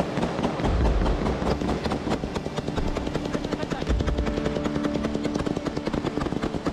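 Machine gun firing long, rapid automatic bursts close by, shot after shot with hardly a break, with deep heavier thuds about one and four seconds in.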